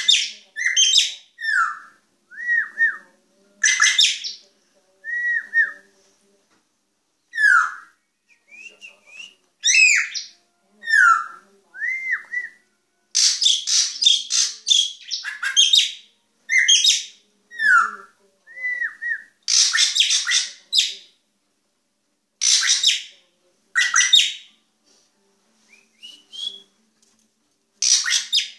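A drongo (srigunting) calling in a long string of varied calls with short gaps: short whistled notes that slide downward, quick rising sweeps, and bursts of harsh, scratchy chatter.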